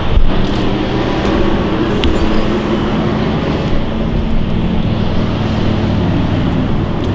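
Car driving on the road: a steady engine hum under constant road noise.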